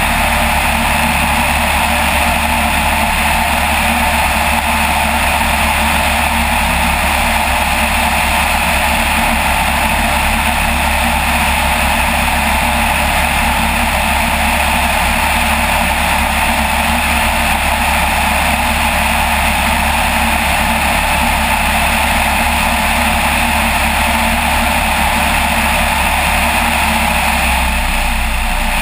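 Light aircraft's piston engine and propeller droning steadily in flight.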